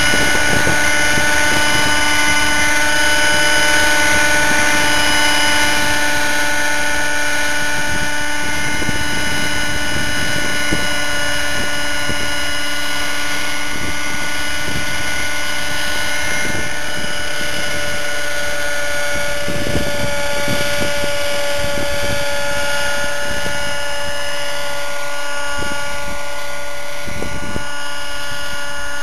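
Nitro RC helicopter's OS 50 Hyper two-stroke glow engine with a Hatori performance muffler, running steadily with a whine that holds its pitch, blended with the rotor noise.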